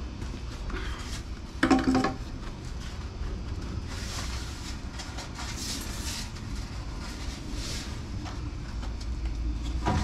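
Black ABS drain pipe and fittings handled and pushed together by hand: a loud plastic clunk about two seconds in, then scraping and rustling, over a steady low rumble.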